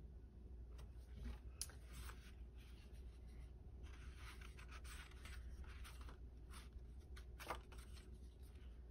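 Faint paper rustling as a small paper booklet is picked up and its pages are leafed through, with scattered soft clicks and one slightly louder rustle near the end, over a steady low room hum.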